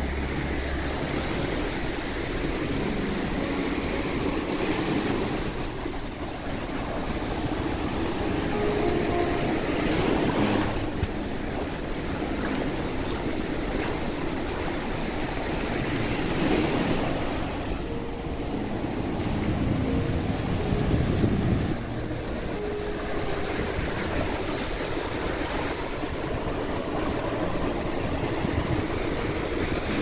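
Small ocean waves breaking and washing up over the sand at the water's edge, the surf swelling louder every few seconds.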